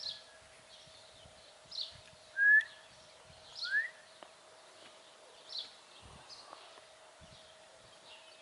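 Birds calling: short high chirps about every two seconds, with two short rising whistled notes a little over a second apart, the first the loudest sound. A faint steady hum runs underneath.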